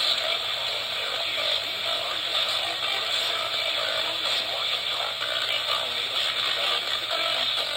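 Radio static: a steady, rough hiss with no clear voice in it, typical of a weakly received broadcast signal.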